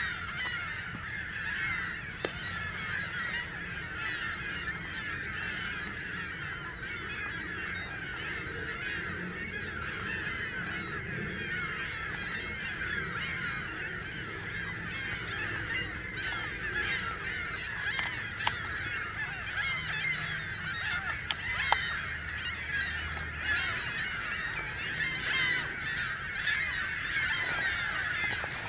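A large flock of waterfowl honking without pause, many calls overlapping into a continuous chorus. A few sharp clicks stand out, the loudest about two-thirds of the way in.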